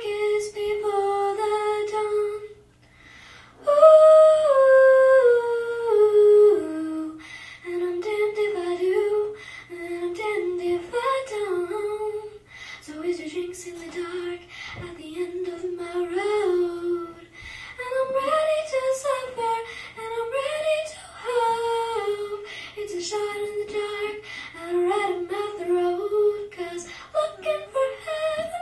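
A young girl singing solo into a microphone, in long held notes that glide between pitches, with a short breath pause about three seconds in.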